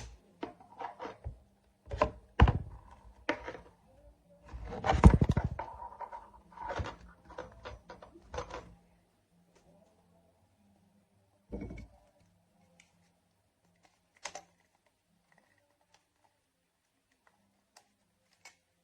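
Irregular thunks and clicks from a collapsible dog bowl with a reinforced rim being handled, with a dense cluster about five seconds in. After that come a few scattered single knocks.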